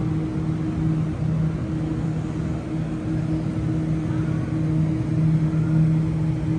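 Two stationary double-deck electric passenger trains standing at the platforms, their onboard equipment giving a steady low hum with two droning tones, the lower one swelling and fading slightly.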